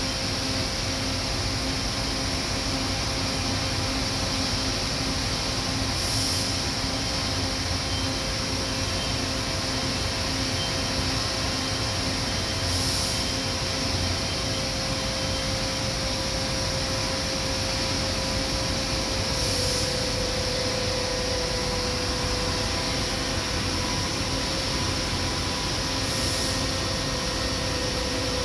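Steady hum of a powered-up Giddings & Lewis CNC vertical boring mill, with several constant tones and a short hiss repeating about every six to seven seconds. One tone steps slightly lower about two-thirds of the way through.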